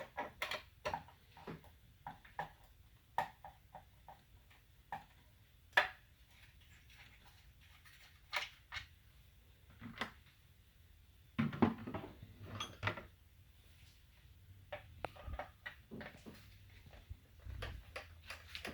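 Parts of a Fleck 5600 water softener control valve being handled and taken apart by hand: scattered light clicks and knocks, with a burst of louder knocks about twelve seconds in.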